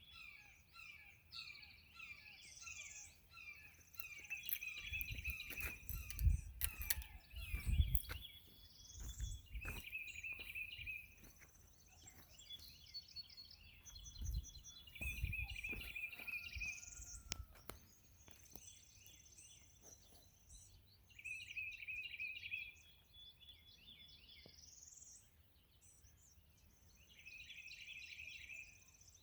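Several songbirds singing: repeated fast trills and rising whistled notes, recurring every few seconds. Twice, about a fifth and half of the way through, low rumbling bumps come in, the loudest sounds here.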